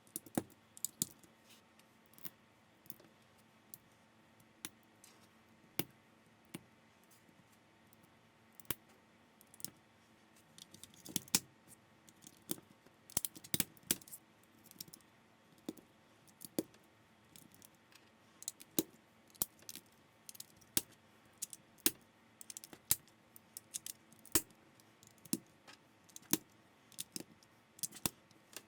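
LEGO-compatible plastic building bricks being handled and pressed together by hand, in irregular clicks with short bursts of rattling pieces, the busiest about eleven and fourteen seconds in.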